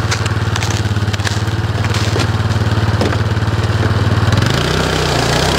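Yamaha Rhino 450 UTV's single-cylinder four-stroke engine idling steadily, with a few crunching steps and knocks in the snow as the driver climbs aboard. About four and a half seconds in, the engine note changes as the machine starts to move off.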